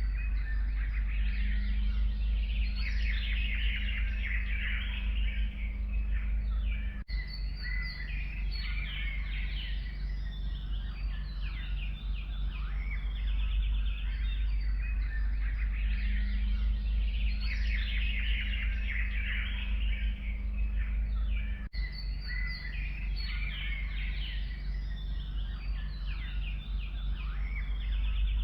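A chorus of forest songbirds chirping and trilling together over a steady low rumble. The recording is a loop: it breaks off briefly and the same passage starts again about 7 s and 22 s in.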